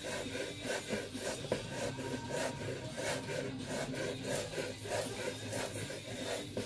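Chef's knife slicing rolled basil leaves into ribbons on a bamboo cutting board: a run of repeated cuts, each blade stroke scraping and tapping on the wood.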